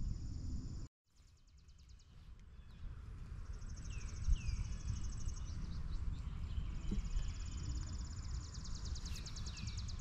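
Outdoor summer ambience: insects trill in fast, even pulsing runs, a few short falling bird chirps come through, and a low rumble sits underneath. The sound drops out completely for a moment about a second in.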